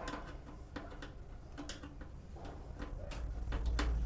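Scattered light clicks and ticks of a Phillips screwdriver working small metal screws out of a range hood's housing. A low handling rumble and a few sharper clicks come in during the last second.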